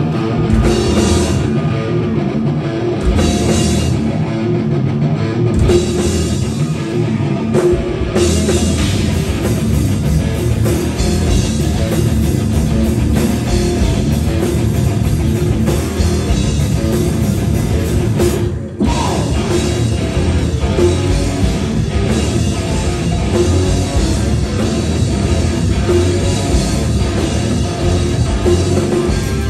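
Live rock band playing electric guitars and drum kit, with a brief full stop in the music about eighteen seconds in.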